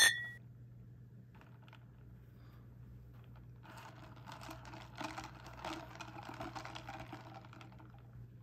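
A sharp plastic click at the start, then a plastic bubble tea cup with ice chunks and tapioca pearls being shaken, giving a rapid clatter of small clicks for about four seconds.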